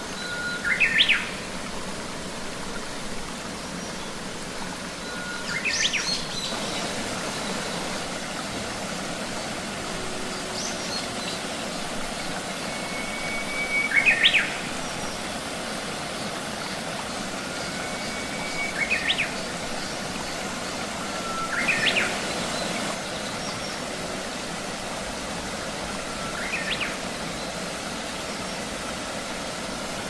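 Small cascade in a rocky mountain stream splashing steadily, with a bird calling six times, every few seconds; each call is a short held whistle that sweeps sharply upward.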